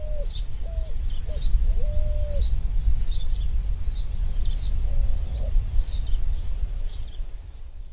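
Birdsong: a bird repeats a short high chirp about every half second, while lower hooting notes come in the first couple of seconds and once more around the middle. A low rumble runs underneath.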